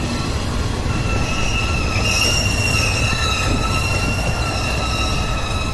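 A train's steel wheels squealing on the rails over the low rumble of the train moving. The squeal is several steady high-pitched tones that set in about a second in and hold on.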